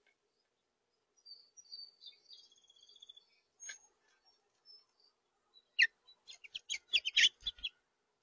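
A bird warbles faintly in the first half, then a rapid run of about nine sharp taps and clicks sounds close to the microphone over a couple of seconds near the end: a house finch pecking at seed on the plastic feeder tray.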